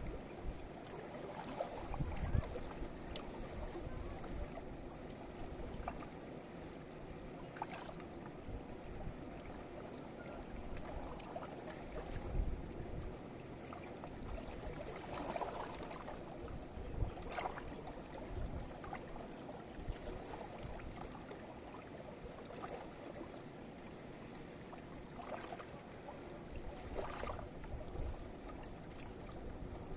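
Steady rush of flowing river water, with uneven low rumbles and a few faint clicks now and then.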